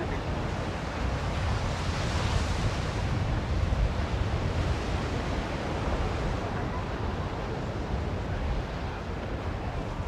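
Ocean surf breaking and washing up a sandy beach: a steady rushing noise with a deep rumble, a little louder around the middle.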